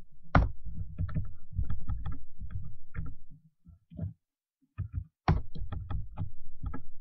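Typing on a computer keyboard: quick keystrokes, each with a dull thud. They come in two runs with a pause of about a second and a half in the middle.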